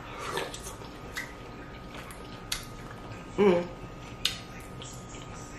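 Eating sounds over a snow crab seafood boil: a few sharp, isolated clicks and snaps of shell and mouth, with a short hummed 'mm' about three and a half seconds in.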